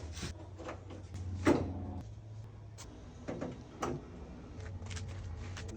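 A string of short, irregular knocks and clunks, about eight in a few seconds, over a low steady hum.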